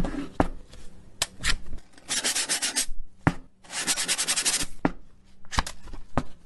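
Two bursts of rapid rubbing strokes against a surface, each under a second long, among scattered sharp clicks and knocks.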